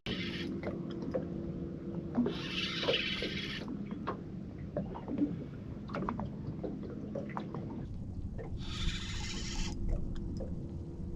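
Fishing reel being wound in short spells while a hooked flathead is played, each spell a hiss of about a second, twice, among small clicks, knocks and water splashing.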